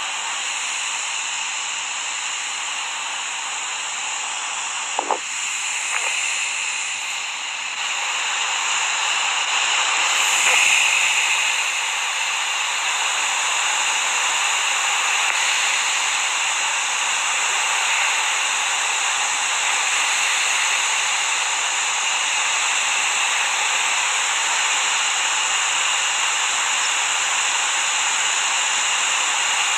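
Steady hissing noise with no breathing rhythm in it. There is a brief click about five seconds in, and the hiss gets louder about eight seconds in.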